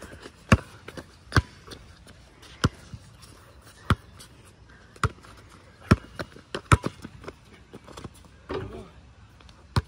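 Basketball bouncing on a concrete court as it is dribbled, each bounce a sharp slap about once every second or so.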